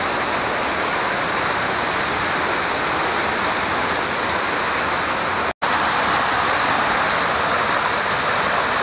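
Water rushing over small waterfalls and cascades of mossy travertine, a steady rush with a split-second break a little past halfway.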